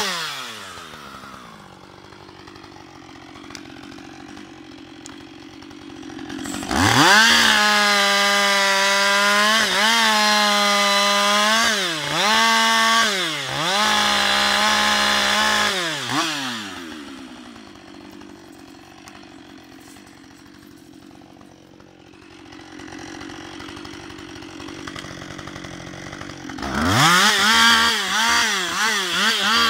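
Husqvarna 560XP two-stroke chainsaw dropping to idle, then run up to full throttle about seven seconds in. It holds there for about ten seconds, with brief dips in pitch as it cuts into a felled log, then falls back to idle. Near the end it revs up again, the pitch wavering as it cuts.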